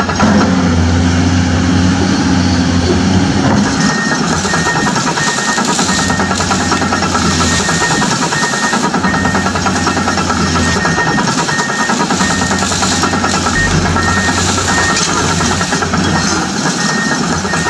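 Steady engine sound of an excavator running, with a faint short beep repeating about twice a second from about four seconds in.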